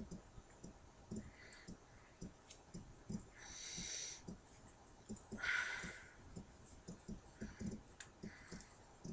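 Small scattered clicks and taps of a plastic action figure being handled while a shirt is worked over its arms, with two breathy exhales, one about three and a half seconds in and a louder one about five and a half seconds in.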